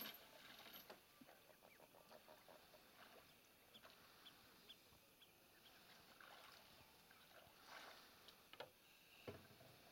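Quiet sounds of a wooden flat-bottomed boat being poled through shallow marsh water: soft knocks and splashes of the pole, with a heavier knock near the end and a few faint bird calls.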